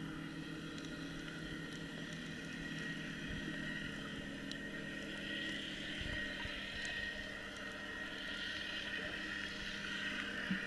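Steady drone of a motorboat engine heard underwater, muffled, with a low hum that fades about halfway through over a hiss of water.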